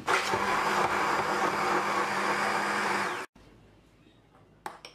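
Hand-held immersion blender running in a cup of thawed raspberries, sugar and water, pureeing them into sauce: a steady motor whine that cuts off suddenly about three seconds in. Near the end, a faint clink or two of a spoon against the bowl.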